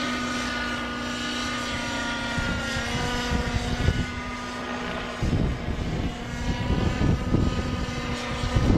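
Model helicopter flying an aerobatic loop: a steady engine and rotor whine whose pitch shifts as it comes through the manoeuvre. Gusts of low rumble come in from about halfway through.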